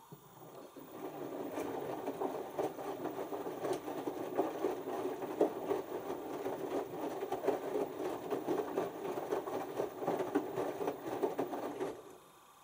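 LG TurboWash 6 Motion front-loading washing machine in its first rinse: the direct-drive drum starts turning and the wet laundry tumbles and sloshes in the rinse water. It runs steadily for about eleven seconds, then the drum stops abruptly.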